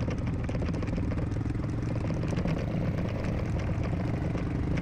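A motorcycle engine running steadily, with a fast even pulse.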